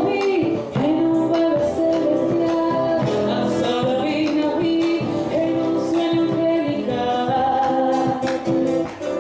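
A woman singing a chacarera in long held notes, accompanied by two nylon-string classical guitars strummed in rhythm.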